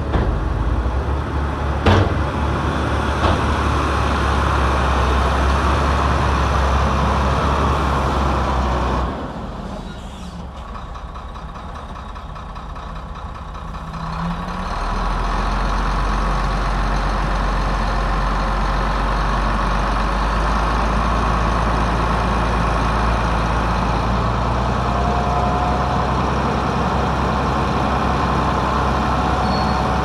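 Diesel engine of a heavy earthmoving machine running steadily under work. A sharp knock comes about two seconds in. The engine drops back for several seconds near the middle, then picks up again and runs on.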